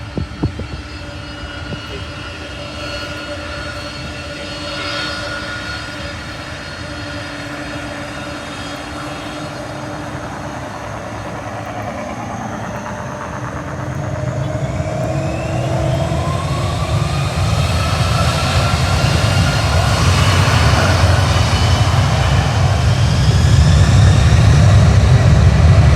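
Jet engines of an Amazon Prime Air cargo jet, a low steady rumble with whining tones that grows steadily louder over the second half as the plane comes closer, some tones gliding upward.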